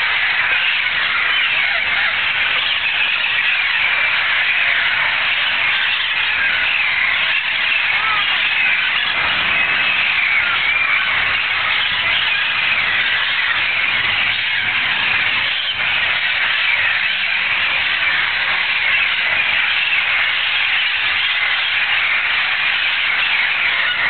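A large flock of wild parrots calling continuously, hundreds of harsh squawks overlapping into a steady, loud din.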